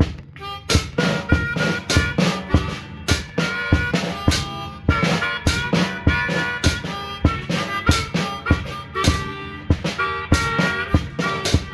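Hohner Piedmont Blues diatonic harmonica played through a bullet microphone, blowing blues phrases over a band track with a steady drum beat.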